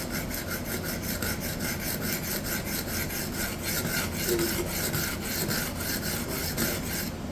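Hard Japanese steel knife edge scraped edge-down back and forth across a diamond plate in rapid, even strokes, a dry rasping that grinds chips out of the edge.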